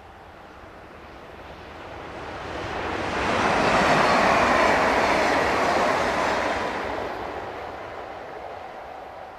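Stadler KISS double-deck electric multiple unit passing at speed. The rushing noise of its wheels on the rails builds, peaks about four seconds in as the train goes by, then fades as it runs away into the distance.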